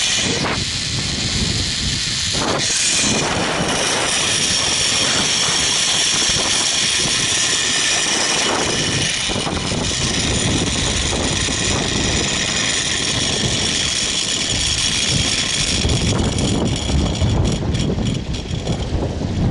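Zip-line trolley pulleys running fast along the steel cable: a steady high whir over loud wind rushing past the microphone.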